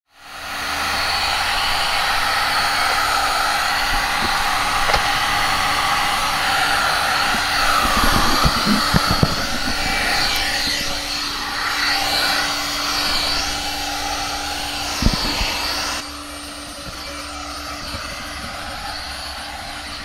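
Electric heat gun blowing steadily, a rushing hiss with a constant hum, as it warms scratched paint protection film on a car door so the film's self-healing top layer can close the scratches. A few light knocks come part-way through, and the sound drops to a lower level about three quarters of the way in.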